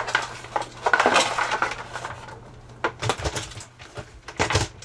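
Hard plastic clatter as a plastic sump pit lid is lowered over a PVC pipe and fitted onto the crock's base ring: a scraping rustle about a second in, then several sharp knocks and clicks.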